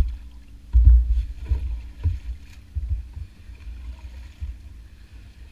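A small boat being paddled: repeated low thuds and splashes of the paddle strokes, roughly one every second or less and loudest in the first half, over a faint steady hum.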